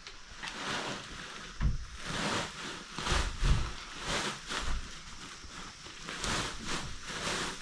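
A sack rustling as dry soil is shaken and poured out of it onto a heap, in repeated surges of rushing, scraping noise with a few dull thumps.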